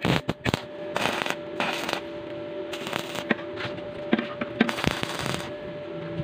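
Stick (arc) welder tack-welding a steel cylindrical hinge to a tubular frame: several short bursts of sputtering arc crackle, the longest and loudest near the end, over a steady hum.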